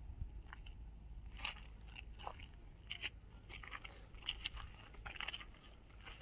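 Footsteps crunching on loose crushed rock and gravel: a dozen or so irregular short crunches over a low steady rumble.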